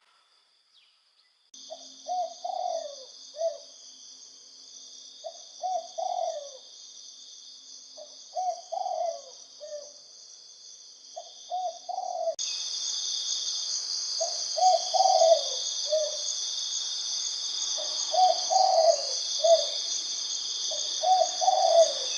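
Spotted dove cooing, a short cooing phrase repeated about every three seconds, over a steady high insect drone that turns abruptly louder about halfway through.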